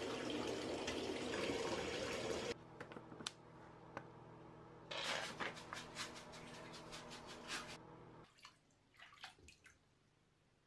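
Water running from a bathtub spout into the tub, stopping abruptly about two and a half seconds in, followed by scattered drips and small splashes of water.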